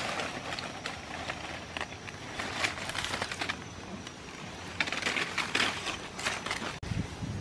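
Leaves and twigs rustling and crackling in several bursts as leafy branches are pushed and handled close to the microphone.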